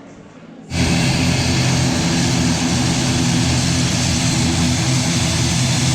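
Propeller airplane's engines running loud and steady, with a low droning hum under a strong rushing noise, starting suddenly about a second in.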